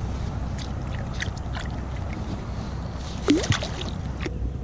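Water sloshing and lapping around a float tube, over a steady low rumble, with scattered small clicks and splashes.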